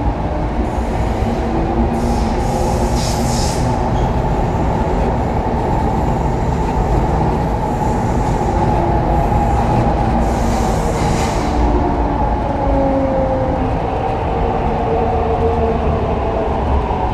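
Heard from inside the car, an MTR East Rail Line R-train electric multiple unit runs through the tunnel with a steady rumble of wheels and running gear. Faint whining tones from the traction equipment shift in pitch, and there are two brief hissing bursts, one a couple of seconds in and one about ten seconds in.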